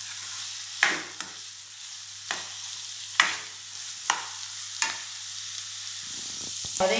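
Chopped onions sizzling in hot oil in a nonstick kadai, sautéing, while a wooden spatula stirs them and scrapes the pan about six times.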